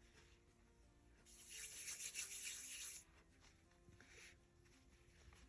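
A hand rubbing firmly over paper for about a second and a half, pressing a freshly glued piece flat onto the page. Faint background music underneath.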